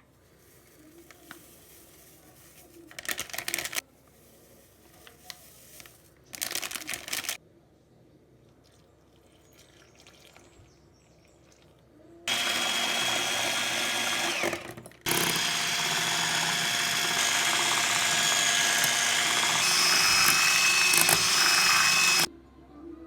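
A small electric motor running steadily with a faint whine, in two long stretches with a short break between them, after two brief bursts earlier on.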